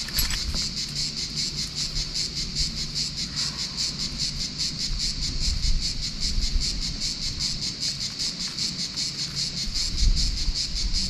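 Cicadas singing in chorus: a steady, rapidly pulsing high buzz that never lets up.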